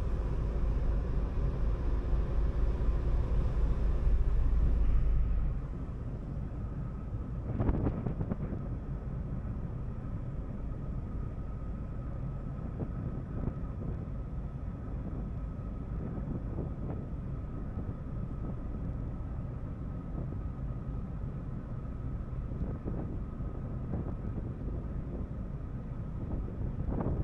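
Ferry under way: a steady low drone from the ship's engines with wind buffeting the microphone. It is loudest for the first five seconds or so, then settles to a quieter, even drone with a faint steady tone, and there is one brief knock about eight seconds in.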